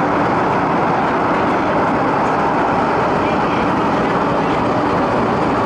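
Steady running noise inside a carriage of an MTR East Rail Line MLR electric train, one even rumble at a constant level.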